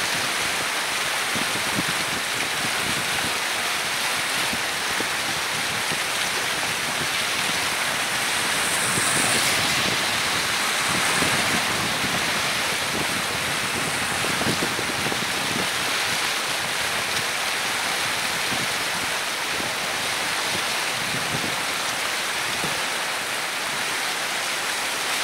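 Steady rushing of a swollen, muddy river in flood after heavy rain, running high and fast.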